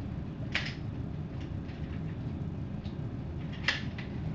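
Two sharp clicks about three seconds apart as a semi-automatic pistol is handled between shots, over a steady low hum.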